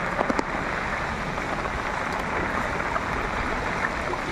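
Heavy rain falling steadily onto a flooded street, a continuous hiss of drops on standing water, with a few sharp taps in the first half second.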